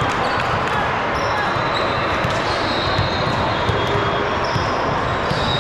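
Busy indoor sports hall during a game: a steady hubbub of voices, with balls thudding on the court and short high squeaks scattered through it.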